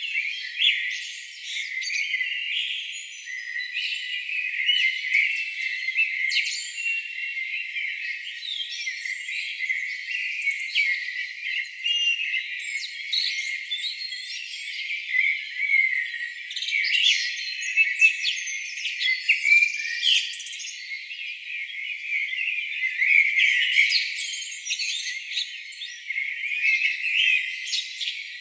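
A chorus of many songbirds singing at once: dense, overlapping high chirps, trills and quick whistles. All low sound is filtered out, which leaves it thin and high-pitched.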